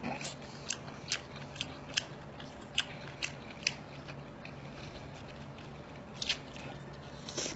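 Close-up eating sounds: chewing and biting a piece of skewered seafood, with sharp wet mouth clicks about twice a second, a pause, then two more clicks near the end.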